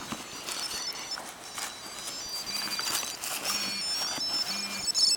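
Tile Bluetooth tracker playing its ringing melody, muffled inside a handbag, coming through more clearly near the end. Hands rummage and rustle through the bag's contents.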